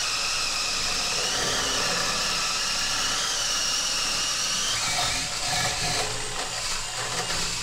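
Cordless drill running at speed, driving a long drill bit through a wooden wall stud: a steady motor whine that wavers a little in pitch as the bit bites, from about five seconds in.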